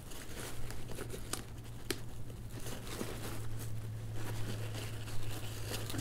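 Fingers working a knife-sheath mounting clip behind MOLLE webbing on a nylon backpack: rustling fabric with a scattered series of light clicks and taps over a steady low hum.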